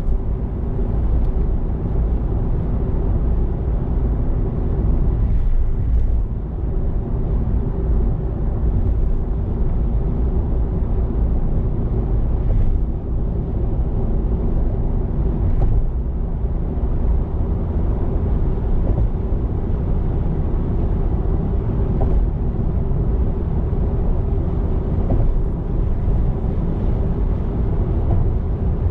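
Steady low rumble of a car cruising on an expressway, tyre and engine noise heard from inside the cabin.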